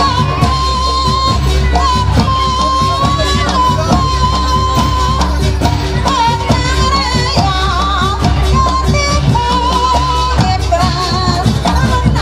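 Loud traditional Javanese Jaranan dance music: a high, wavering melody line over steady drumming.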